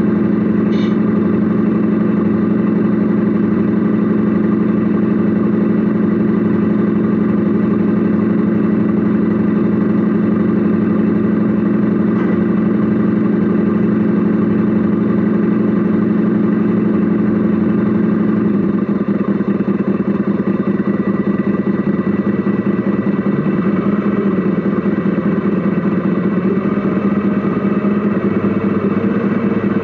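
Radio-controlled model Mercedes Actros SLT truck running, heard from inside its cab: a steady engine-like drone that changes about 18 seconds in to a pulsing, slightly quieter beat.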